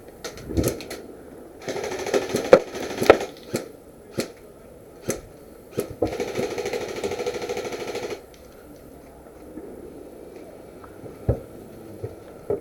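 An airsoft gun firing single sharp shots, about a dozen at irregular spacing, mixed with two stretches of rustling.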